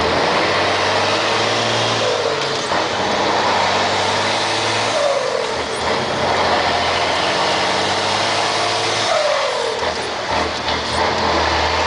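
Scania 112 truck's six-cylinder diesel engine running and being revved, its speed rising and falling a few times.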